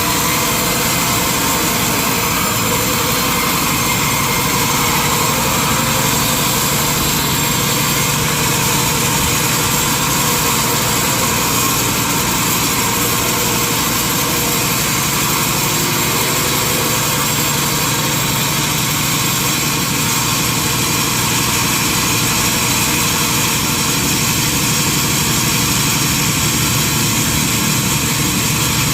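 Sawmill machinery running at a steady, unchanging level, with a constant hum over a wide hiss.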